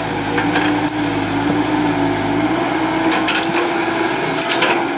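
CAT 312D hydraulic excavator digging, its diesel engine running at a steady pitch, with several sharp cracks and knocks, the loudest cluster near the end.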